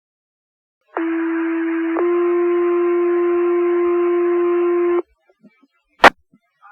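Fire department radio paging alert: a two-tone sequential page over the radio channel, one tone for about a second and then a second, slightly different tone held for about three seconds, both with radio hiss, then a sharp radio click.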